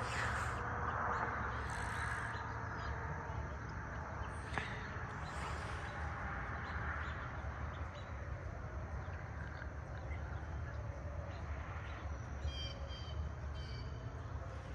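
Rural morning ambience of birds calling over a steady low rumble, with a quick run of short, high calls near the end.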